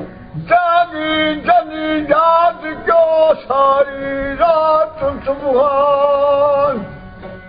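A man singing a devotional folk song in long, wavering held notes, over the steady drone of a long-necked plucked string instrument; the voice falls away near the end.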